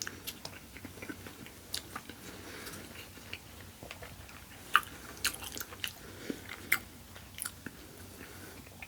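Close-miked mouth sounds of eating: biting and chewing food, with many short, sharp, irregular clicks and crunches.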